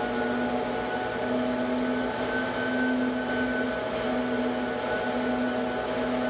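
Home-built cylinder-head flow bench running steadily, its motor giving a constant hum with a thin whine over a rush of air. It is holding about 27 inches of water of test depression, with no air yet flowing through the head's port.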